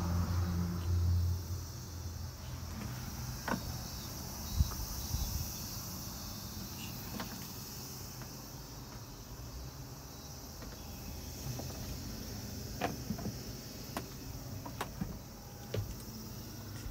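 Quiet inside of a camper van: a steady low hum and faint hiss, with scattered soft clicks and knocks as someone moves about inside.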